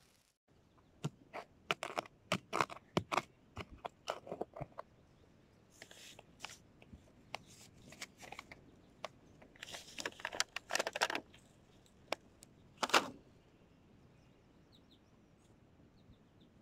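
Hands digging, scraping and patting loose garden soil around seedlings: a run of short, irregular crunchy scrapes that stops about three-quarters of the way through.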